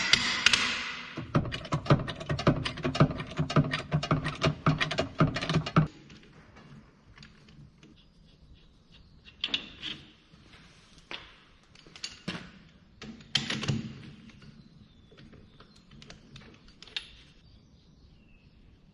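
Impact wrench on a tractor's wheel nuts, a rapid hammering rattle for about six seconds. After that come scattered metallic clanks and knocks.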